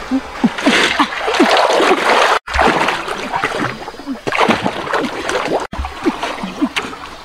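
Water splashing and sloshing as a person swims through a river, pushing a large floating metal wok ahead of her. The sound cuts out abruptly twice.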